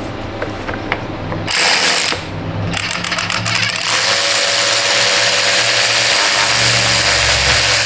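Power tool turning a socket on an extension to back out a spark plug: a short burst, a run of quick clicks, then a steady whir for about the last four seconds.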